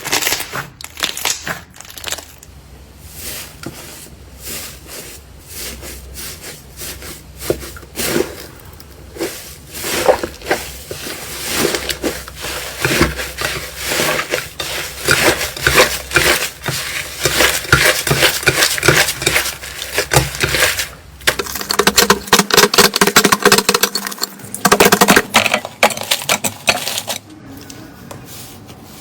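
Slime being squeezed and poked by hand, with dense, irregular crackling and popping clicks, quieter in places and loudest in the later part.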